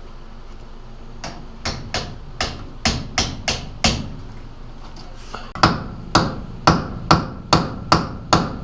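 Hammer blows on a stuck bolt in a drum-brake backing plate, knocking it loose. About eight lighter taps come first, then after a short pause a run of harder, louder blows at about two a second.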